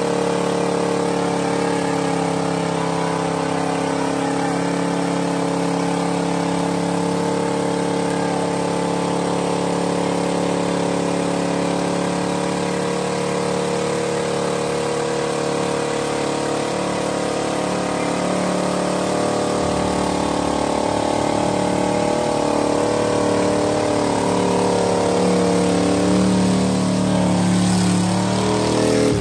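Ford pickup truck's engine held at high revs in a burnout, its rear tires spinning on the pavement. The engine note stays nearly steady and wavers more near the end.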